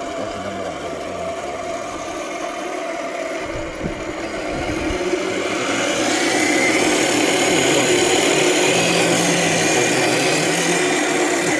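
A 1/10 scale RC crawler's motor and drivetrain running as it crawls up a loose dirt slope, with a steady whine that grows louder about five seconds in.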